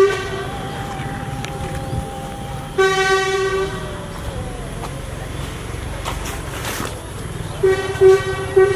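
Vehicle horns honking in toots of under a second each: one at the start, one about three seconds in, and two close together near the end, with a fainter held tone between them.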